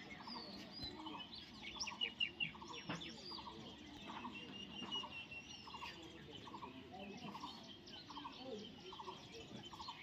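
Birds calling outdoors: one bird repeats a short low call about twice a second throughout, while others chirp and whistle higher, one whistle held for over a second about halfway through.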